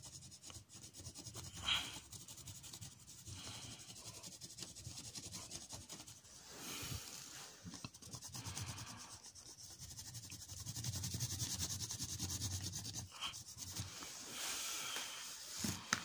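Colored pencil shading on paper: repeated rubbing strokes of the pencil lead across the sheet, coming in uneven spells, with a couple of light taps near the end.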